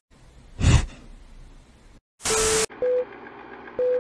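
Film-countdown leader sound effect: a short hit under a second in, a loud blast of noise with a tone just after two seconds, then short beeps of one pitch about once a second.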